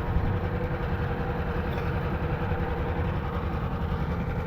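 Engine running steadily at a constant speed: a low, even drone with a faint steady tone above it.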